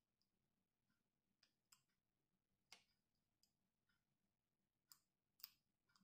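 Faint, scattered clicks of a small screwdriver and fingers handling screws and plastic parts in an opened laptop, about six light clicks at uneven intervals, the strongest near the middle and near the end.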